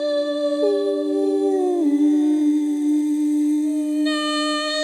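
Wordless female voice humming long held notes, several layered at once. One note slides slowly down about a second or two in, and another note comes in near the end.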